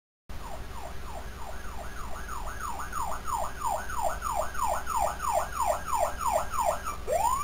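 Fire engine siren in a rapid yelp, about three falling sweeps a second over a low steady hum. It starts abruptly, and near the end it switches to a single rising wail.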